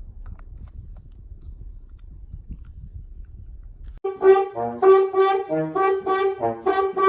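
Low rumbling background noise with a few faint clicks. About four seconds in, brass-sounding music starts, a bouncy tune of short repeated notes.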